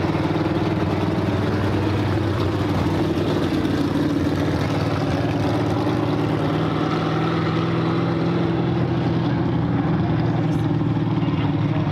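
Vintage Ford Mustang race car's engine running loud and steady as the car drives past and away down the track.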